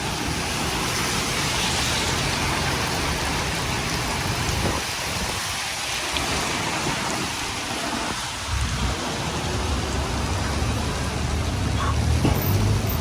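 Heavy rain falling and pattering on surfaces as a steady hiss. A low rumble runs beneath it, dropping away for a few seconds in the middle and coming back stronger after about eight seconds.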